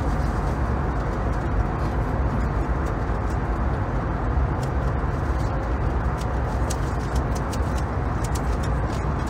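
Steady airliner cabin noise in flight: the low drone of engines and airflow inside an A320neo's economy cabin. Faint quick clicks of a Rubik's cube being turned come through in the second half.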